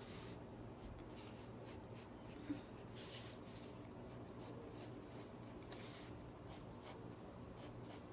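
Graphite pencil sketching on paper: a run of short, faint scratchy strokes, a few of them louder, as fur lines are drawn.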